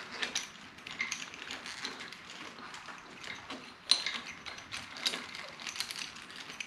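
Hands handling motorcycle wiring and fittings: an uneven string of small clicks, taps and rustles, with one sharp click about four seconds in.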